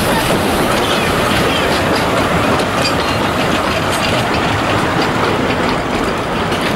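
Narrow-gauge passenger carriages rolling past on the rails: a steady rumble of wheels on track with occasional clicks.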